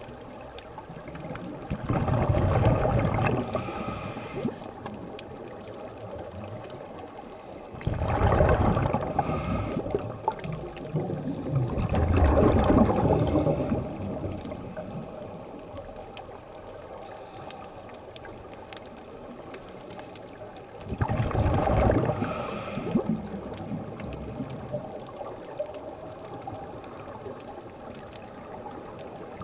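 Scuba diver breathing through a regulator underwater: four bursts of exhaled bubbles, each a second or two long, with a steady faint underwater hiss between them.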